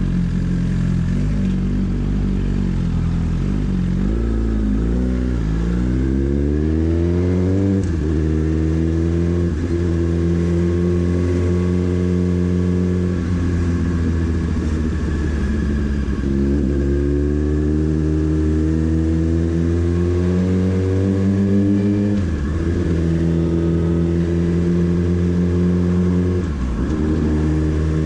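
Motorcycle engine under way: the revs climb steadily, drop sharply at gear changes several times, and otherwise hold at a steady cruising note.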